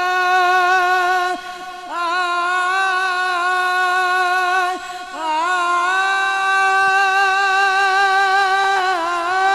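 A man's amplified voice sings long held notes with a slight waver, in three drawn-out phrases broken by brief breaths about a second and a half and five seconds in.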